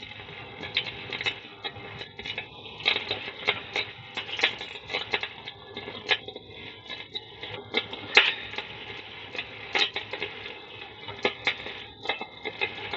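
Electric arc welding: the arc crackling and spitting in irregular sharp pops over a steady sizzle.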